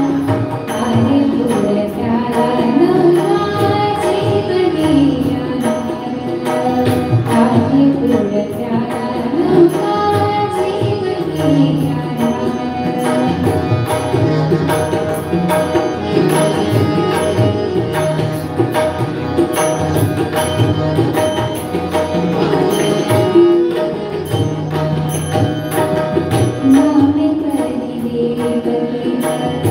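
Marathi abhang devotional song: a melodious voice singing over steady held tones, with hand-drum accompaniment.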